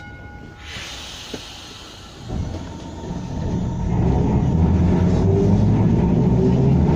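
W6 class tram heard from on board as it gets under way: quiet for about two seconds, then its rumble and running noise build up and settle into a steady loud run by about four seconds in.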